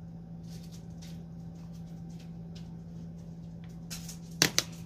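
Faint soft swishes of a makeup brush sweeping powder across the face over a steady low hum. Near the end come two sharp clicks in quick succession, the loudest sounds.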